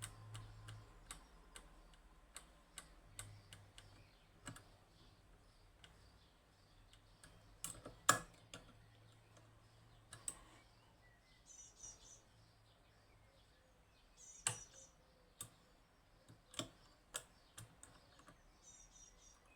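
Faint, irregular metallic clicks and taps from picking tools working the levers of a Union (Chubb) G110 five-lever lock, tapping the levers up past their false gates; one louder click comes about 8 seconds in.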